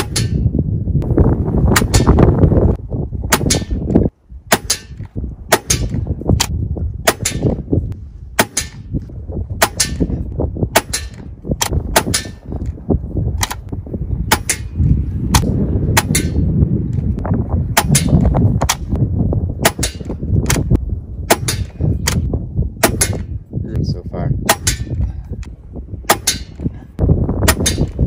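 Gamo Arrow .22 PCP air rifle being fired over and over, a sharp crack roughly every two-thirds of a second.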